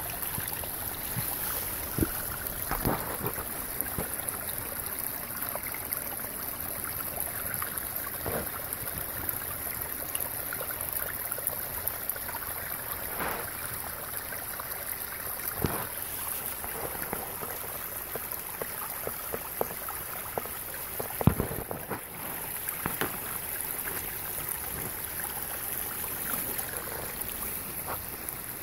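Water from a small spring trickling and splashing out of the rocks in a steady flow, with a few scattered knocks and rustles, the loudest about three-quarters of the way through.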